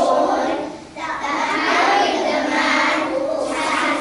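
A group of young children chanting a poem together in unison, with a short break about a second in.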